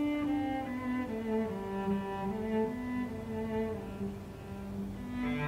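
Background music: a slow melody of held notes over a lower moving line.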